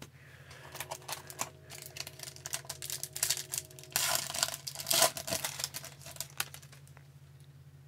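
Foil wrapper of an Upper Deck hockey card pack crinkling and tearing open by hand: a rapid crackle, with the loudest rips about four and five seconds in.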